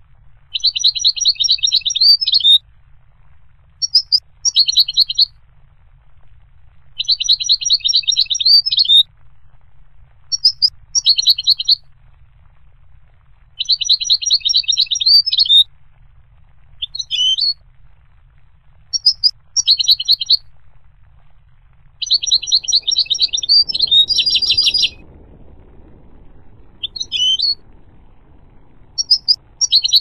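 European goldfinch singing: short phrases of rapid, high twittering notes, each a second or two long, repeated every few seconds, over a faint low hum.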